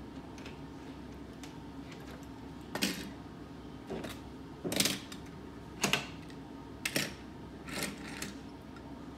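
Small toy cars being set down and knocked against each other on a toy race track mat: a series of light clicks and clacks, about one a second, louder from about three seconds in.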